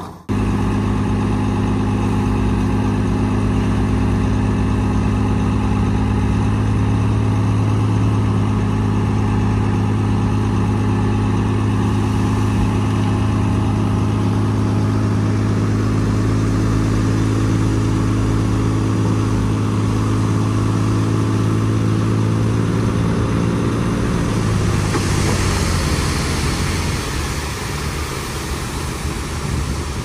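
Heavy construction machine's diesel engine running at a steady speed with a constant low note. About 24 seconds in the steady note drops away and a rougher, hissier noise takes over.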